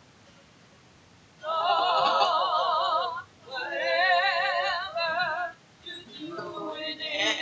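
A woman singing with a wide vibrato in a church choir. After a second and a half of quiet she holds two long notes, then moves into shorter phrases near the end.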